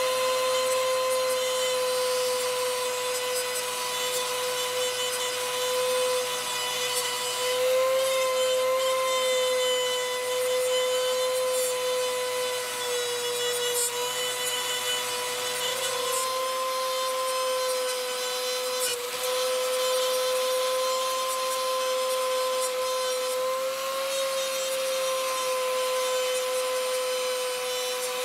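Small rotary tool running steadily with a high whine that wavers slightly under load, its buffing wheel rubbing over a guitar's metal frets with metal polish paste.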